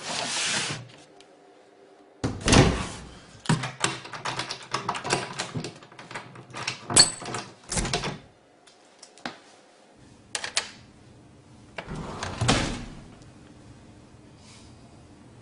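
A locker door is shut with a bang, then a padlock is hooked through its hasp and snapped shut amid a quick run of metallic clicks and rattles. Another thud comes near the end.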